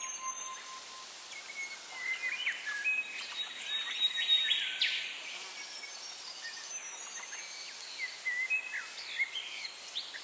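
Wild birds calling: short chirping and whistled notes over a steady background hiss. The calls come thickest from about two to five seconds in, then again near the end.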